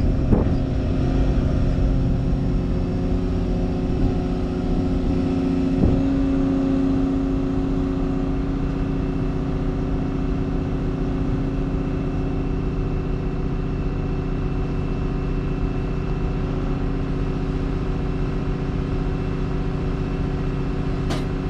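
Diesel engine of a heavy machine running steadily under hydraulic load while it lowers a concrete riser box into place, with a few faint clunks.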